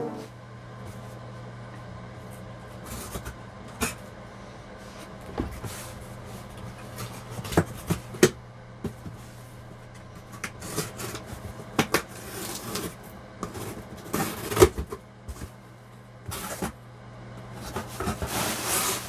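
Cardboard shipping box being handled and opened: irregular knocks, taps and clicks against the cardboard, with a few longer scraping, rustling passes, over a steady low hum.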